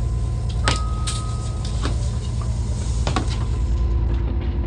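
Fishing boat's engine running steadily with a low drone, with a few sharp knocks as fish are handled in the fish hold.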